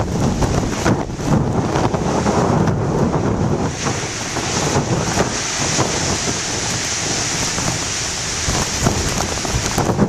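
Heavy surf breaking and washing over shoreline rocks, mixed with strong wind buffeting a camcorder microphone wrapped in plastic wrap. Together they make a steady, loud noise with a low rumble.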